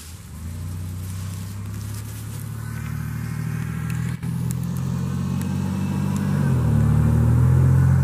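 A motor vehicle engine running close by, a steady low drone that grows gradually louder, with a slight shift in pitch near the end.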